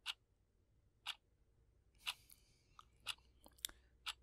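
Faint, scattered small clicks and taps: single clicks about a second apart at first, then several closer together in the second half.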